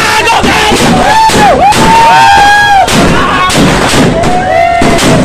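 Fireworks going off at close range: a dense run of loud bangs and crackle, with shrill tones that rise and fall, several at a time.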